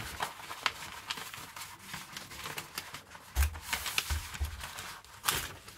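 Large paper fold-out page of a model kit's instruction manual rustling and crinkling as it is handled and folded, with a few dull low bumps around the middle.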